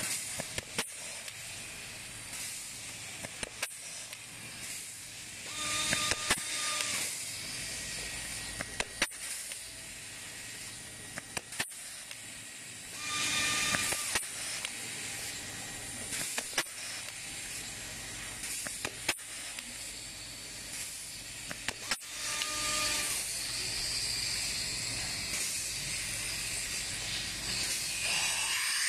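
Hitto pneumatic self-vacuum blind rivet gun running on compressed air: a steady hiss from its mandrel-suction vacuum. It is broken by many sharp clicks as rivets are set and spent mandrels snap off, and by three louder rushes of air carrying a steady tone, about six, thirteen and twenty-two seconds in.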